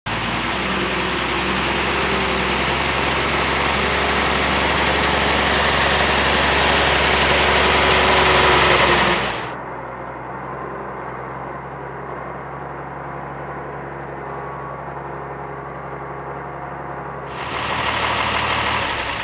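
Engine of an M35-series 2½-ton military truck running steadily. About halfway through, the sound drops suddenly to a duller, quieter drone, then grows louder again near the end.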